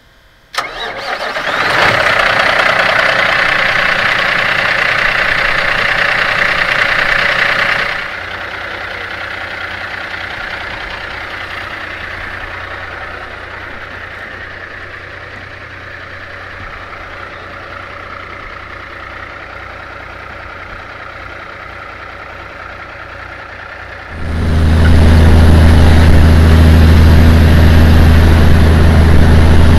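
Truck engine starting with a sharp click and running loud and fast for several seconds, then easing back to a steadier, lower run. About 24 seconds in, a much louder, deep steady engine drone sets in.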